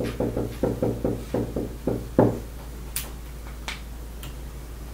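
Dry-erase marker writing kanji on a whiteboard: a quick run of tapping strokes, about five a second, for the first two seconds. A few light clicks follow near the end as the markers are handled.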